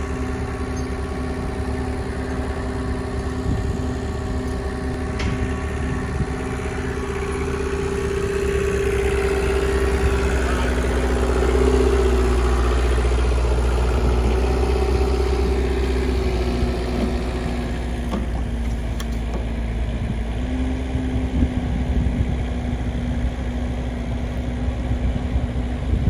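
Kubota mini excavator's diesel engine running steadily. It grows louder and its pitch shifts for several seconds in the middle as the hydraulics work the boom, then settles back.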